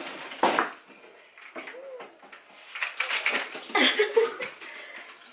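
Folded GB Pockit Plus compact stroller being handled and pulled open: its frame and joints give a knock about half a second in, then a run of clicks and rattles a few seconds in as the handlebars are lifted.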